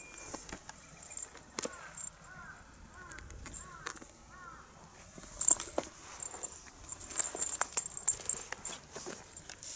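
Kittens' paws scrabbling and pattering on gravelly pavement and a feather wand toy swishing and slapping the ground, heard as a string of sharp clicks and scrapes. It is busiest and loudest from about halfway through.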